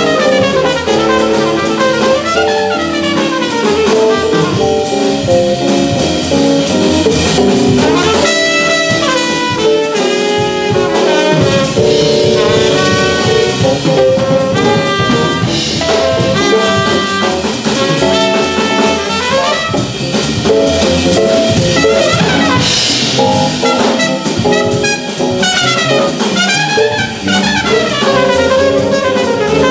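Live small-group jazz: a trumpet plays a solo line of runs and held notes over upright bass and drum kit.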